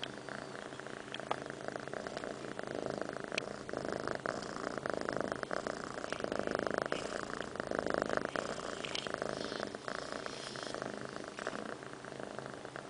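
A domestic cat purring steadily right at the microphone, swelling louder around the middle.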